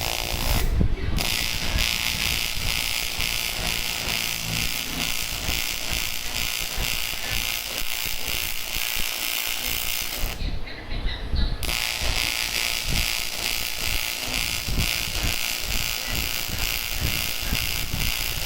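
TIG welding arc on aluminium buzzing steadily while weld is built up on a shaft. It stops briefly about half a second in, and again for about a second around ten seconds in.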